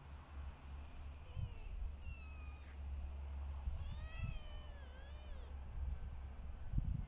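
Young kittens mewing, several short high-pitched calls that rise and fall, the loudest about four seconds in, over a steady low rumble, with a few low thumps near the end.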